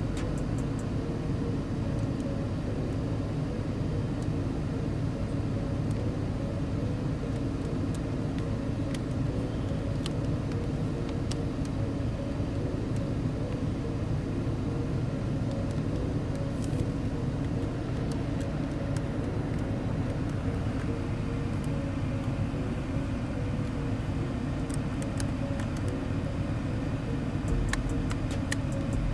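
Steady hum of a car running at idle, with a faint steady tone and a few small clicks.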